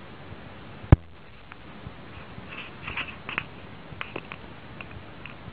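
A cat playing with a paper box: scattered light taps and ticks, with one sharp knock about a second in.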